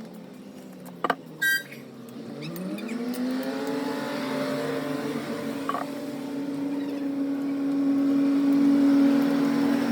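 Hero Glamour motorcycle's single-cylinder engine idling, then revved up from about two seconds in and held at a raised speed, growing louder near the end. A click and a short beep come about a second in.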